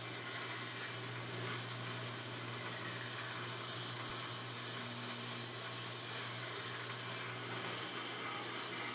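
Steady hum and hiss of a machine or fan running evenly, with no strokes or changes.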